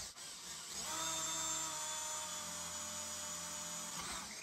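Electric drill boring a twist bit into plywood: a rougher start as the bit bites, then a steady motor whine that winds down near the end.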